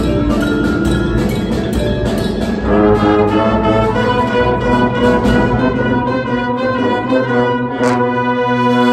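High school indoor winds ensemble of brass with percussion playing live. The brass swell into a loud held chord about three seconds in, with a crash near the end.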